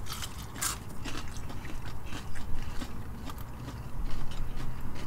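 Chewing and biting into crispy fried chicken wings, with scattered crunches; the loudest crunch comes about half a second in.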